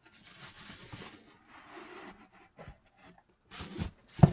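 Bubble wrap crinkling and rustling in bursts as boxed hardcover books are handled in a cardboard shipping box, with a loud thump near the end as a book case knocks against the box.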